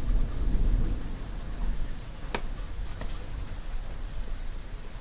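Steady rain falling, with a low rumble of thunder dying away in the first second or so. A single sharp click comes about halfway through.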